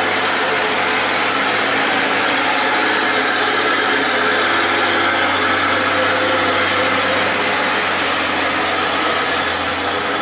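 Diesel engine of a loaded Hino dump truck running steadily under load as the truck drives slowly past, carrying a full bed of limestone.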